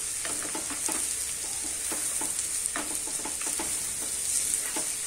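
Finely chopped onions frying in hot oil, sizzling steadily, while a plastic spatula stirs them around the frying pan in short, repeated scraping strokes.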